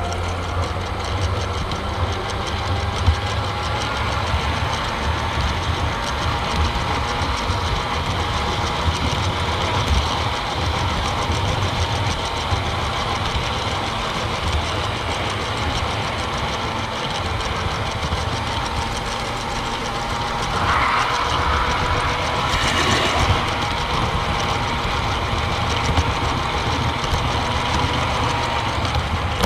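Garden-railway model steam locomotive running along the track while hauling a train of wagons, heard from on board: continuous running noise with a low hum and a thin, slowly wavering whine. A brief louder rush of noise comes about two-thirds of the way through.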